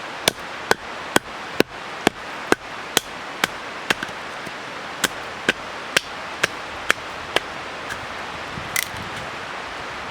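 Fast-moving river rushing steadily under a series of about fifteen sharp knocks, roughly two a second. The knocks pause briefly near the middle and stop about seven seconds in.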